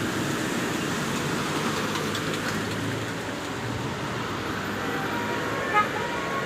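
Steady noise of passing road traffic. A brief, loud, high tonal blip comes near the end.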